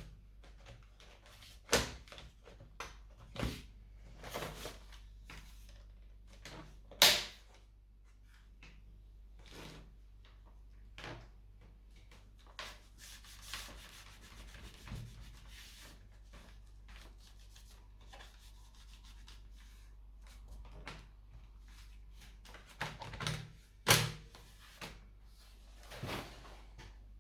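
Irregular clicks, taps and brief rubbing from hands handling a laptop's plastic casing and tools during repair work. The sharpest knocks come about a quarter of the way in and again near the end.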